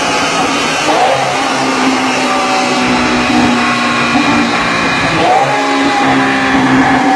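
Lamborghini Aventador's V12 engine running on a chassis dyno at steady revs, a loud continuous drone whose pitch rises briefly about a second in and steps up again about five seconds in.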